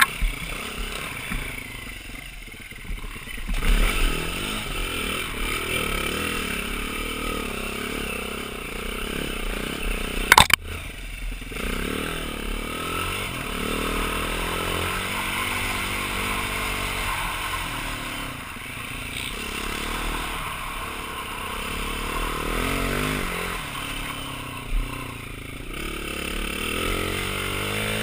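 2009 BMW G450X's 450 cc single-cylinder four-stroke engine running under way, its pitch rising and falling as the throttle opens and closes. A sharp knock about ten seconds in, and the engine gets louder near the end.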